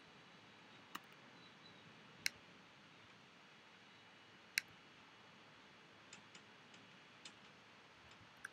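Faint, scattered clicks of a computer mouse and keyboard over near silence, a few single clicks and then a small cluster of lighter taps near the end.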